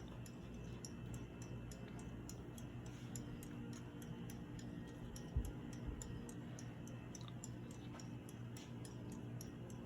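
A 1990s Hunter Millennium ceiling fan running on low speed, a faint steady hum with a light, regular ticking. This is the fan's original Hunter factory low speed. Two soft thumps come about halfway through.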